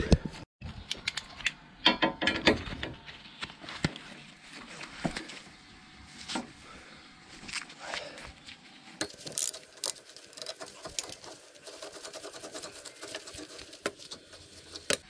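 Metal hand tools clinking and knocking on the motorcycle's fittings as bolts are worked loose, with a denser run of rapid clicking from about nine seconds in.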